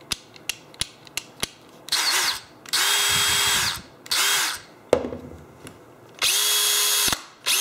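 Cordless drill/drivers run free with no load, in short trigger bursts. Each burst is a steady motor whine that spins up and winds down. First come a few light clicks from the drill's controls. Then the DeWalt DCD708 compact brushless drill runs three times, and near the end a larger DeWalt 20V XR drill runs once, for comparison.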